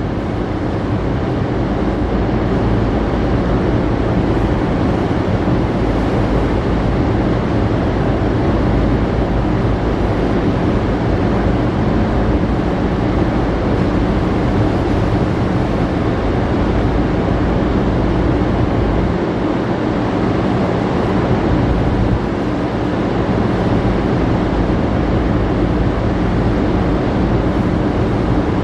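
Steady low hum of a cargo ship's engines and machinery under an even rush of wind and sea.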